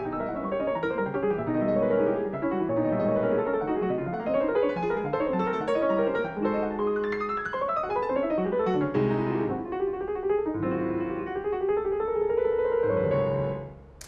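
Grand piano played solo, with quick runs of notes over a lower part. Near the end a rising line of notes builds, then the playing stops.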